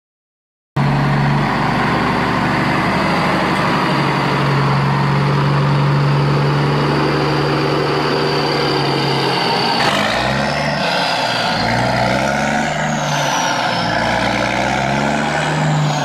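A motor running steadily at one pitch, then from about ten seconds in rising and falling in pitch again and again, as when throttled up and down.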